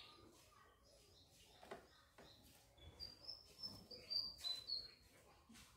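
Small birds chirping faintly: a run of short, high chirps in the second half, with a few light clicks.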